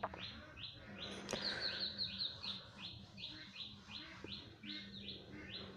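A bird chirping over and over in a steady series of short falling chirps, about two to three a second, over a faint low hum.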